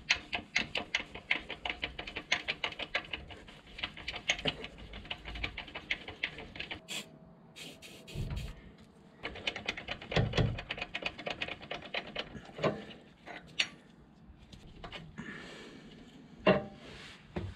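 Rapid metallic clicking, about five or six clicks a second, for the first six seconds or so, as the stuck clutch slave cylinder is worked loose from the gearbox bellhousing. After that come a few separate knocks and clunks as the cylinder is pulled out and handled.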